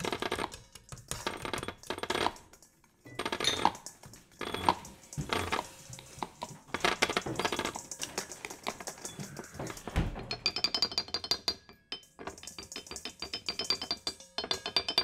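Free improvisation on household objects: repeated bursts of small rattling, clinking clicks, a low thump about ten seconds in, then light high-pitched tinkling.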